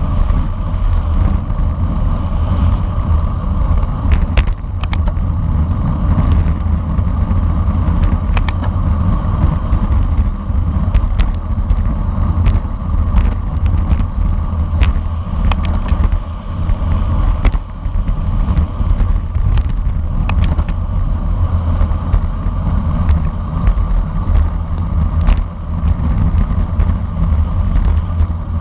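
Wind buffeting a moving onboard camera's microphone as a continuous low rumble, with scattered sharp clicks and knocks from the ride.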